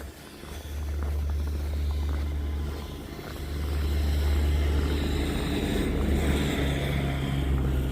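Motor vehicle engine running close by, a steady low rumble that dips about three seconds in and then comes back louder.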